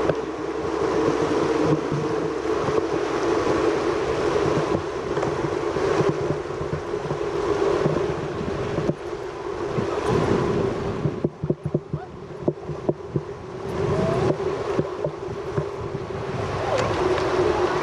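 Steady rushing of a flowing stream. It dips briefly in the middle, with a few short knocks.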